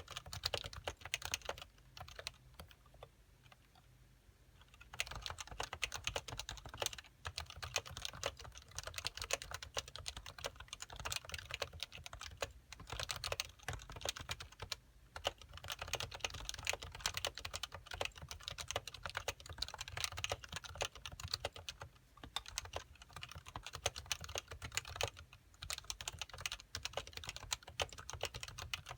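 Typing on a Happy Hacking Keyboard Professional 1 with 45 g Topre electrostatic-capacitive switches, stock and not yet silenced: a fast stream of key presses. It pauses for about three seconds near the start, with brief breaks around the middle and later.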